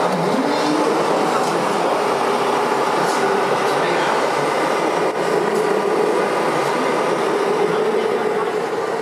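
Radio-controlled model trucks running, steady engine-style noise from their sound units, with voices in the background.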